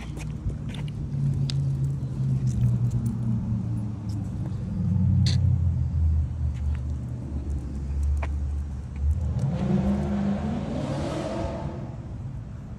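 Low rumble of a motor vehicle running, swelling into a louder rushing pass about ten seconds in, with a few faint clicks.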